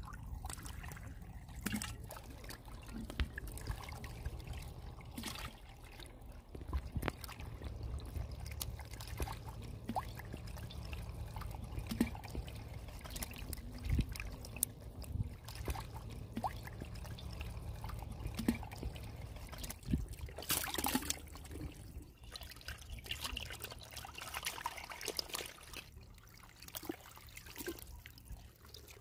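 Water trickling and dribbling in wet sand over a steady low rumble, with scattered wet slaps and clicks of stranded fish wriggling on bamboo sticks. There is a louder splashy burst about twenty seconds in.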